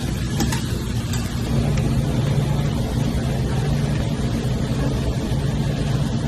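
Flour-coated chicken pieces deep-frying in hot oil, a steady sizzle with a low hum underneath.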